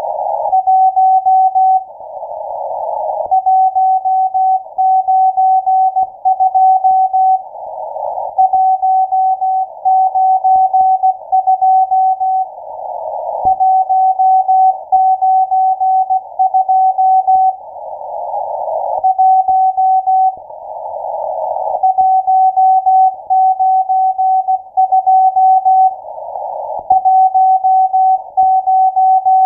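Morse code from the M12 numbers station received on shortwave: a single steady tone keyed rapidly on and off in dots and dashes. Every few seconds the keying pauses between groups, and narrow-filtered receiver hiss swells up in each pause.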